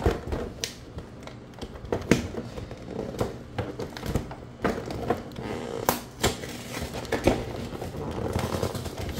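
A cardboard toy box being handled while its packing tape is picked and pulled at: irregular rustling with scattered taps and clicks, a few of them sharper.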